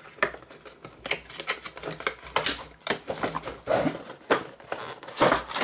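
Product packaging being cut and pulled open by hand: a run of irregular crinkles, clicks and rustles.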